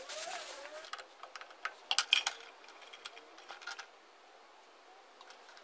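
Clicks, taps and scraping as a replacement paper oil filter element is handled and pushed into the metal canister of a remote bypass oil filter, with a cluster of sharper knocks about two seconds in. The sounds thin out after about four seconds.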